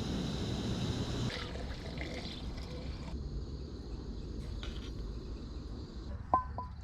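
Water pouring and trickling. A steady hum cuts off about a second in, and two sharp clicks come near the end.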